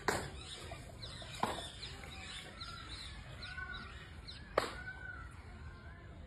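Birds chirping and calling in short arched notes, with three sharp clicks or knocks: one at the start, one about a second and a half in, and the loudest about four and a half seconds in.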